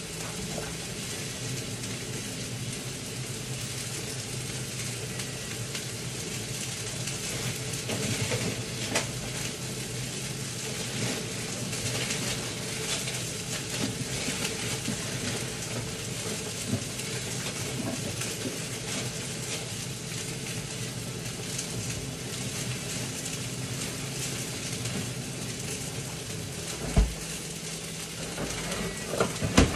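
Food sizzling and crackling in a frying pan on a gas burner, steady, over a low hum. A single knock near the end.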